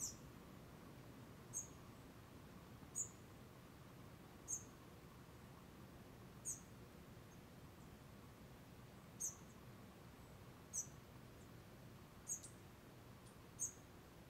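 A small animal's short, very high chirp, repeated about nine times at slightly uneven gaps of one and a half to two and a half seconds, over a faint steady low background hiss.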